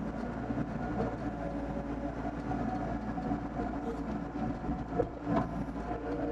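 Doosan DX55 mini excavator working: its diesel engine runs steadily under hydraulic load, with a single sharp knock about five seconds in.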